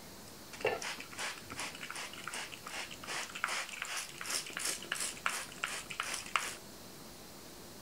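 Hand-twisted spice grinder crunching over a salad, in a steady run of short, crisp grinding strokes about three a second for some six seconds.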